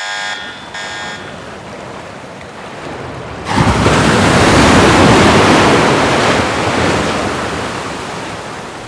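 Rushing water noise, steady at first, jumping sharply louder about three and a half seconds in and then slowly fading. Electronic beep tones die away in the first second.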